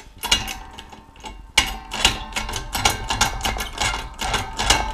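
Shop press forcing a part into a steel tube for a tubular lathe chuck key: a fast, continuous run of sharp mechanical clicks, several a second, getting louder about a second and a half in.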